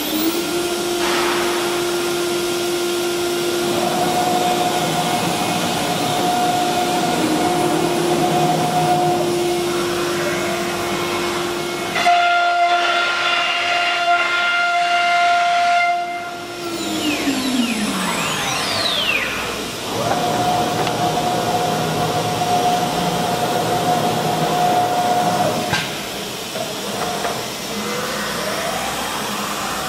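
High-speed router spindle of a CNC nesting machine running with a steady whine over a hiss of cutting and dust extraction. A little past halfway the whine falls away in pitch as the spindle winds down, and a higher steady whine then runs for several seconds.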